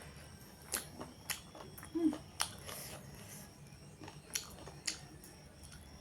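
Close-up eating sounds of chicken curry: a series of about six sharp clicks and smacks of biting and chewing.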